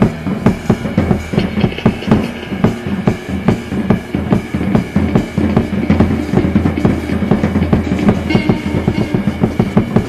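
Improvised rock band playing live: a drum kit keeps up a busy, fast beat of kick and snare hits over steady held low notes.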